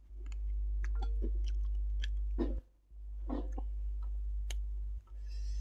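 A man chewing a mouthful of mutton biryani eaten by hand, with scattered short mouth clicks. A loud low hum runs underneath and cuts out briefly twice.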